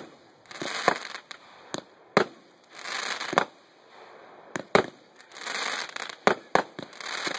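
Consumer firework cakes firing: about a dozen sharp bangs from aerial bursts, spread unevenly, with hissing rushes between them.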